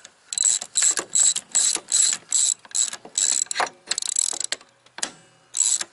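Hand socket ratchet clicking in quick repeated back-and-forth strokes, about two to three a second, as it unscrews the upper strut mount nut on a VW MK4 strut tower; the clicking stops for about a second near the end.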